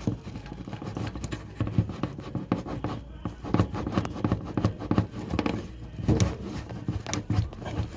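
Irregular knocks, clicks and scraping as a washer-dryer's suspension shock absorber is pushed and pulled to work it free of its plastic snap mount.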